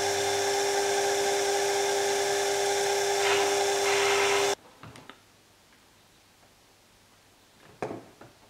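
Small metal lathe running with a steady, high motor whine while a tool turns a small brass part, with a brief rise in cutting noise shortly before the sound cuts off suddenly about halfway through. A few faint, light taps follow.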